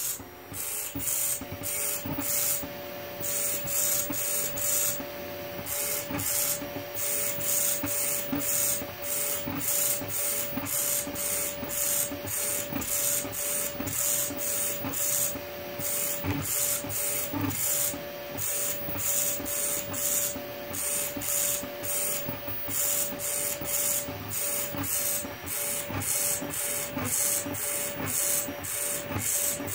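Homemade pen plotter filling in a pattern: its stepper motors drive the pen carriage in quick back-and-forth strokes, a stop-start whirring that repeats two or three times a second over a steady hum.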